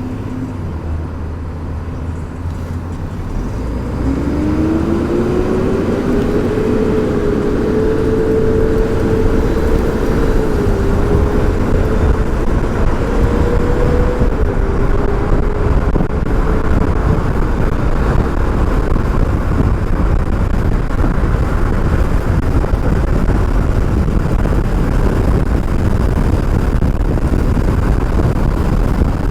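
Electric e-bike motor whining as the bike speeds up, its pitch rising for several seconds from about four seconds in and then holding steady. Wind and road noise on the helmet microphone grow louder with the speed.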